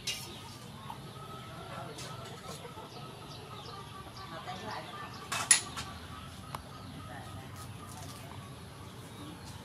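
Chickens clucking faintly in the background of a yard, with a few light clicks of kitchenware. About five and a half seconds in comes one sharp metallic clink, the loudest sound, as metal dishes knock together.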